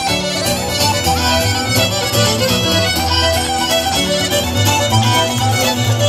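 Irish traditional tune played live on fiddle, accordion and acoustic guitar, heard through a stage PA: quick fiddle melody over strummed guitar and accordion.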